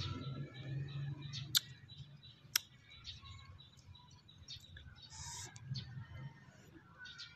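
Mouth and chewing sounds of a person eating slices of fruit, with two sharp clicks about a second apart in the first three seconds, and birds chirping in the background.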